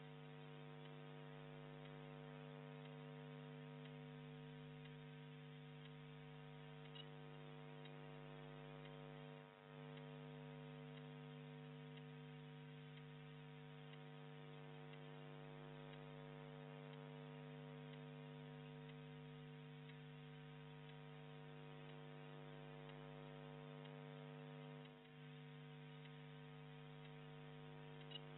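Near silence apart from a steady electrical hum with several overtones, which dips briefly twice.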